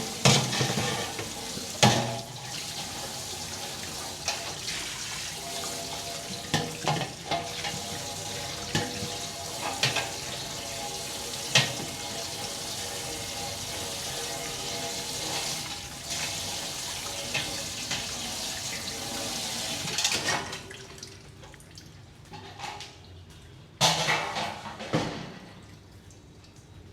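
Kitchen tap running into a sink during hand dishwashing, with dishes knocking and clinking now and then. The water stops about twenty seconds in, and a few louder clatters of dishes follow near the end.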